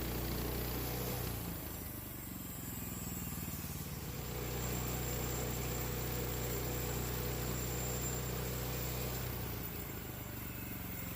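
An engine running steadily, its note shifting about a second in and again near the end.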